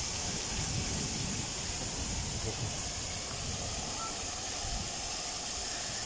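Ground-level plaza fountain jets spraying and splashing onto paving: a steady hiss of water with an irregular low rumble underneath.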